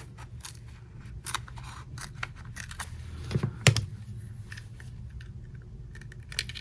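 Pry tool working between an iPhone 7's screen and frame, a string of small clicks and scrapes with two sharper snaps a little past three seconds in, over a steady low hum.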